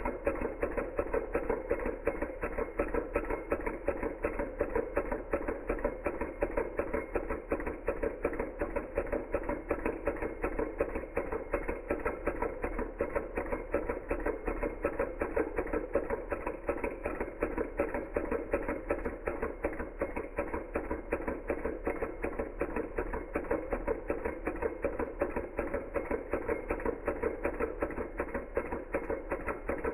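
Small Hog Motor model Stirling engine running steadily, its piston and linkage making a fast, even ticking clatter several beats a second.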